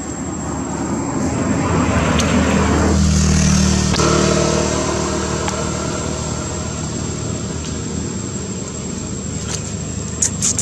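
A motor vehicle's engine close by, swelling to a peak about three seconds in, then running on as a steady drone.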